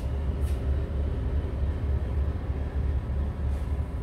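Steady low rumble of ship engines and machinery, with a couple of faint brief hisses about half a second in and again near the end.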